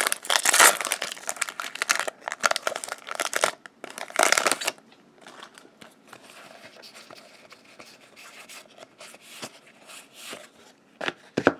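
Plastic foil booster pack wrapper crinkling and tearing open by hand for the first four and a half seconds, then quieter rustling of trading cards being flipped through.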